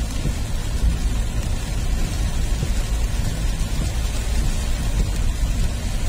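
Heavy rain falling steadily, with a constant deep rumble underneath.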